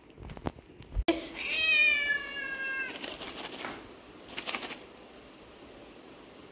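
A cat meowing once, a long meow of almost two seconds that falls slightly in pitch, asking for a treat. It is followed by two short bursts of crinkling from a plastic cat-treat pouch being handled.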